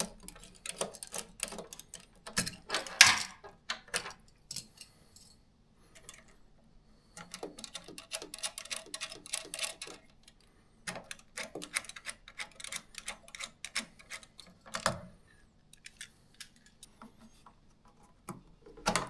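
Cable connectors being unplugged from a projector's rear connector panel: plugs and latches clicking and knocking against the panel, cables rattling. The clicks come in quick bursts with short pauses between, the loudest about three seconds in.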